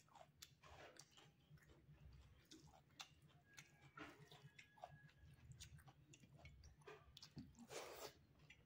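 Faint close-up chewing of a mouthful of rice and dal. Small wet clicks come from fingers mixing rice and dal in a steel plate, with a louder smacking bite near the end.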